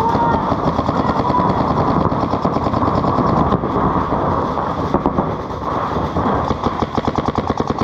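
Paintball markers firing reballs in rapid strings, shots from more than one marker overlapping without a break; over the last second or so a fast, even stream of shots stands out.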